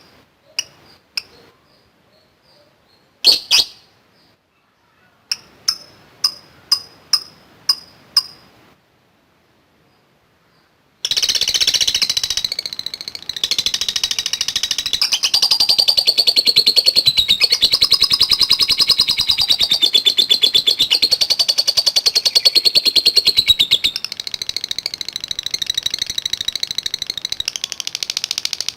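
Lovebird calling: a scatter of sharp single chirps, then a row of about seven evenly spaced ones, and after a short pause, about a third of the way in, a long unbroken rapid chatter, the 'ngekek panjang' that lovebird keepers prize.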